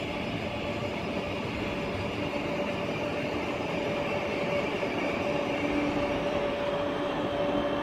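KTX-I high-speed train, a 20-car set, running past on the rails and pulling away: a steady rushing of wheels and air with a faint hum.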